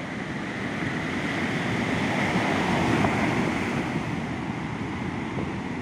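Ocean surf breaking and washing up a sandy beach, a wave's rush swelling about halfway through and easing off again.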